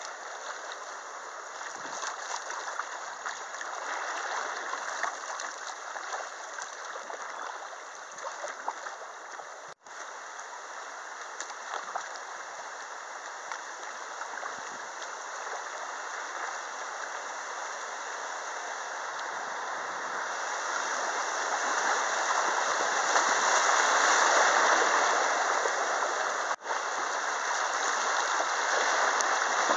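Shallow river current rushing over riffles and rocks around a kayak, a steady noise that grows louder about two-thirds of the way through as the boat enters rougher white water. The sound drops out for an instant twice.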